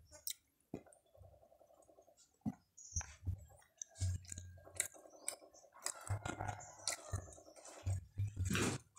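A person chewing food, with irregular wet smacks and clicks.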